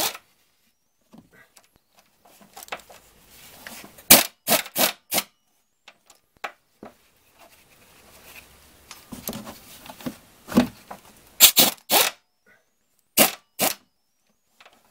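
Short, sharp clacks in four quick groups from a butterfly impact wrench on a wobble extension and 10 mm socket, loosening the water pump pulley bolts.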